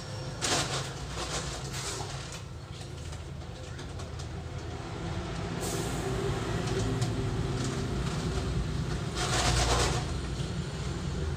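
A bucket scrapes up dry grey cement-sand mix from a concrete floor, and the mix is poured through a funnel into a sack. The pours and scrapes come as hissing, rustling bursts, the loudest about nine seconds in, over a steady low hum.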